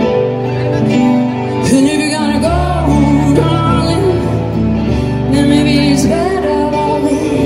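Live pop song played by a band through a festival PA: sustained instrumental chords, with a woman's singing voice coming in about two seconds in.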